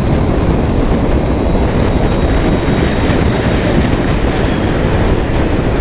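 Steady wind rush and road noise from a BMW K1200GT motorcycle under way, wind buffeting the microphone.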